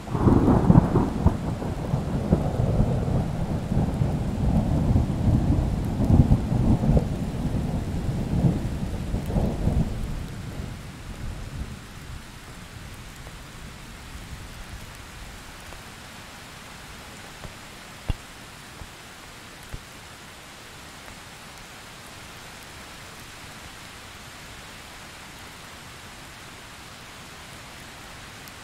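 A long roll of thunder breaks in suddenly and rumbles with crackles for about ten seconds, then fades away, leaving steady rain.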